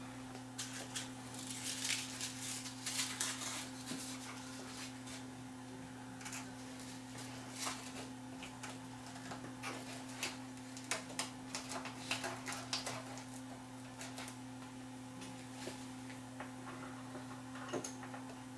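Scattered small clicks, taps and scratching of fingers handling the plastic switches and parts of an opened cassette deck mechanism, over a steady low electrical hum.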